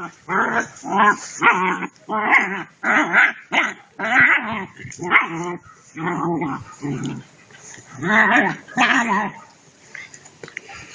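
Two-month-old German shepherd puppy barking in play: a run of about a dozen short barks, roughly two a second, with a short pause partway and fading out about nine seconds in.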